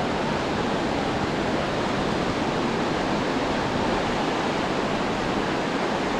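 Steady, even rushing of surf and wind along a sandy beach, with no distinct events.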